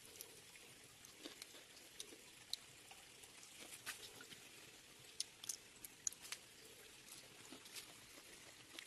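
Faint, irregular small clicks and crackles of fingers peeling and picking apart a small piece of cooked food.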